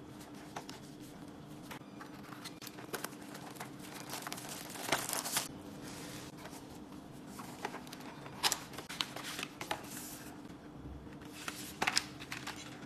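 Nitrile-gloved hands handling and opening a cardboard box and its paper packaging: scattered taps and clicks with short bursts of paper and card rustling, the loudest about five seconds in, again around eight and a half seconds, and near the end. A steady low hum runs underneath.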